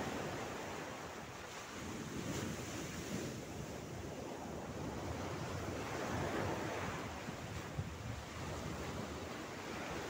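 Mediterranean Sea waves breaking and washing over a flat rock ledge. The surf rushes steadily and swells and ebbs every few seconds.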